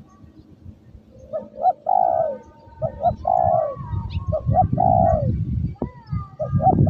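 Spotted dove (tekukur) cooing over and over. Each phrase is a few short notes and then a longer falling coo, about three and a half phrases. Wind rumbles on the microphone underneath.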